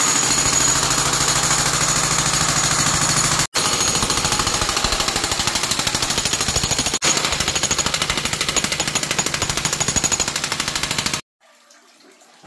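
Jackhammer hammering rapidly and continuously, broken by two short gaps, then cutting off abruptly near the end.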